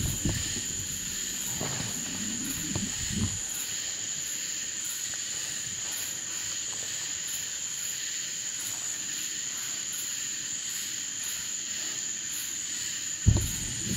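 Night insects, crickets or katydids, calling: a steady high trill with a fainter pulsing call that repeats a little more than once a second. A few soft low thumps come in the first three seconds, and a sharper thump near the end is the loudest sound.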